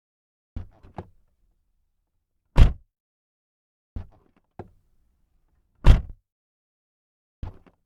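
A car door unlatched with a few quick clicks, then shut with a loud thud about two seconds later. This happens twice, and the latch clicks open a third time near the end.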